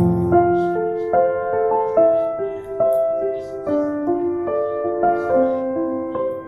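Background music: a gentle piano melody of held notes changing about every half second.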